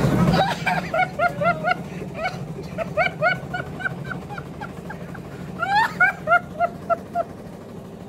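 A rapid series of short, high-pitched calls that each rise in pitch, about three or four a second with a pause midway and one sharper upward glide near the end, over a steady low hum.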